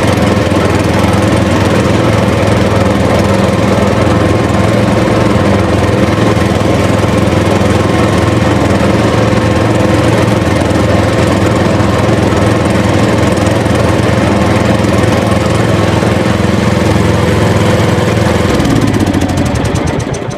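A steady, engine-like motor running, its pitch dropping about eighteen seconds in, then fading out.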